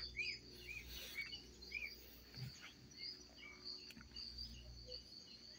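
Faint bird calls: a series of short, arched chirps about twice a second in the first two seconds, over a steady high insect trill.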